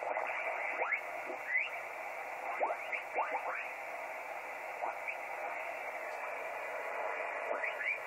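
Kenwood TS-480 HF transceiver's receiver audio as the tuning knob is turned down through the 20-metre band in upper sideband. It is a steady band hiss, with a few stations sweeping through as brief gliding whistles.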